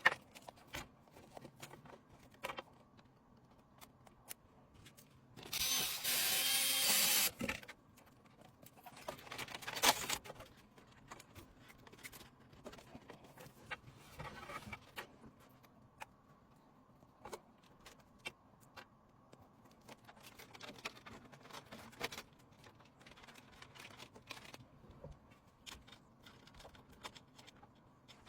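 Hands handling PC components during assembly: scattered clicks and taps, a loud rustle lasting about two seconds around six seconds in, and a shorter rustle near ten seconds.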